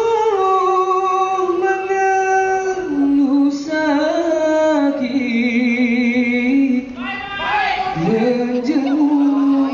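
Singing: a voice holding long, drawn-out notes that slide from pitch to pitch with vibrato. It breaks off briefly about seven seconds in and comes back with an upward glide.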